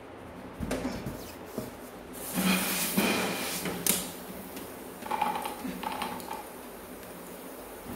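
Handling noise of a rubber balloon's neck being stretched and fitted over the mouth of a plastic bottle: scattered clicks and rustles, a louder rush of noise about two and a half to four seconds in, then a few short squeaks.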